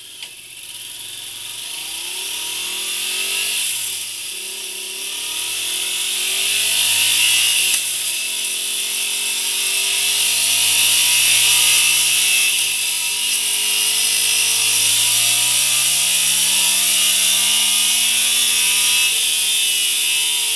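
Yamaha Tracer 700's 689 cc parallel-twin engine, on its stock exhaust, running under load on a rolling-road dyno. Its revs climb and then drop back several times as it shifts up through the gears, getting louder overall. A steady high hiss from the spinning rear tyre and roller sits under it.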